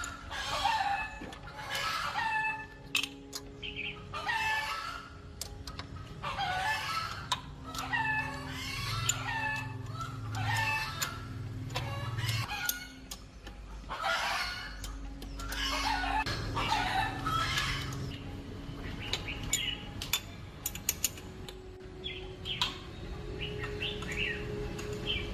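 Chickens clucking in a series of short calls, about one a second, with sharp clicks scattered among them, more of them toward the end.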